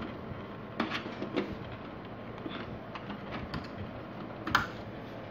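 Screwdriver and screw clicking against the sheet-metal chassis of an opened LCD TV as a screw is fitted. There are a few sharp clicks over a steady background hiss, the loudest about four and a half seconds in.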